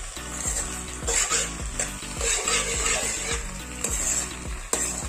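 A spoon stirring and scraping macaroni around a pan in repeated strokes, with the food sizzling over a low gas flame.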